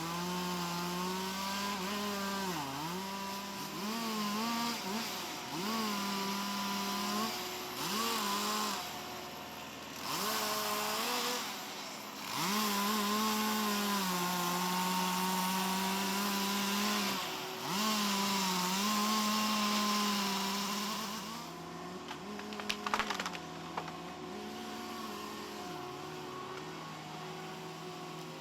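Motor-driven tree-cutting machinery at work: the motor's pitch repeatedly sags under load and recovers, with stretches of harsh saw-like cutting noise. Near the end it eases to a lower, steadier running note, with a few sharp clicks.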